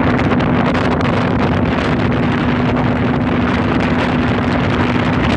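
Boat motor running steadily under way, a constant hum beneath heavy wind rushing over the phone's microphone.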